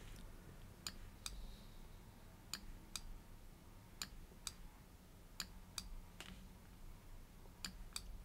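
Faint computer mouse button clicks in pairs, press and release about half a second apart, five times, as the Warp tool is clicked and dragged. A low steady hum sits underneath.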